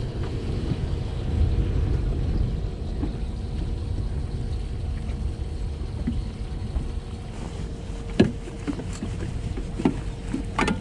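Steady low rumble of wind and water around a small boat. A faint steady hum comes in about seven seconds in, and a few sharp knocks follow near the end, the loudest about eight seconds in.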